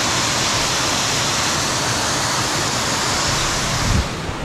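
Waterfall: a steady, really loud rush of falling water. About four seconds in, a low thump comes just before the sound drops suddenly to a quieter, duller rush.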